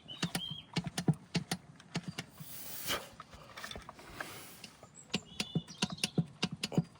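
Hand oil pump being worked to push new gear oil into a BMW X5's front differential: quick clicking and creaking pump strokes, with a hiss about halfway through.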